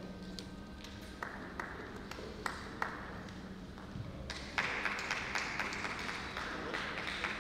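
Carom billiard balls clicking against each other and knocking off the cushions during a three-cushion shot, a handful of sharp clicks. Audience applause breaks out about halfway through and is the loudest part.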